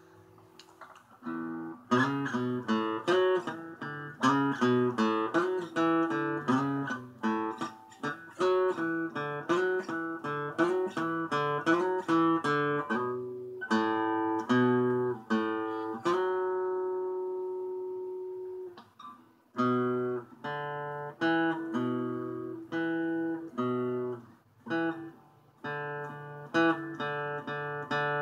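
Acoustic guitar played with a quick run of single plucked notes. The playing starts about a second and a half in. About two thirds of the way through, one note is left ringing for a few seconds before the picking resumes.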